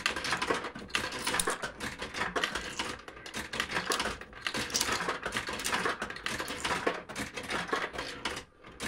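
'Bully for You' fruit machine playing, with a dense run of rapid mechanical clicking and rattling, which briefly drops away near the end.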